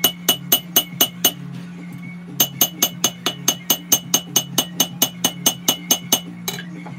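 Hand hammer striking hot Damascus steel on an anvil, forging a paring-knife blade: quick, even blows of about four a second, each with a bright metallic ring. The blows pause for about a second early on, then resume, ending with one last strike near the end, over a steady low hum.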